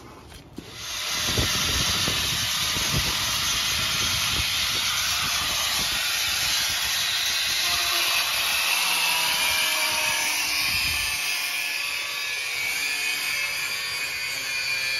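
Steady loud hiss of compressed air from a pneumatic hand tool running off an air hose.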